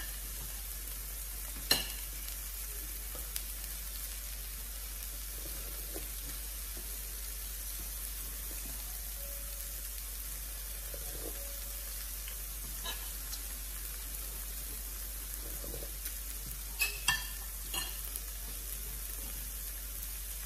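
Chicken and pork sizzling steadily on an electric hotpot grill plate. A few sharp clicks of metal utensils on plates cut through it, one about two seconds in and a small cluster near the end.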